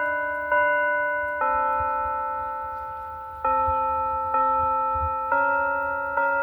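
Church bells ringing a slow tune, one stroke about every second, each on a different note and left to ring on and fade. There is a pause of about two seconds after the second stroke; six strokes in all.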